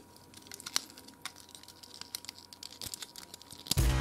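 Small plastic clicks and rattles of a transforming robot toy's joints and parts being moved and snapped into place by hand. Music comes in loudly near the end.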